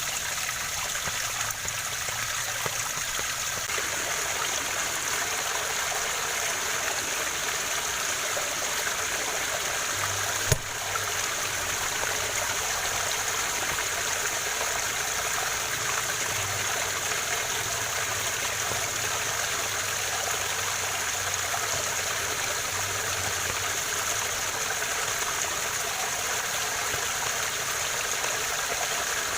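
Waterfall: a steady, even rush of falling and running water, with a single sharp click about ten seconds in.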